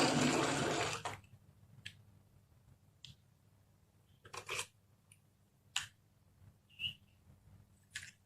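Marbles on a wooden marble run: a rolling rattle for about the first second, then a handful of separate sharp clicks and clacks as marbles knock against the track pieces.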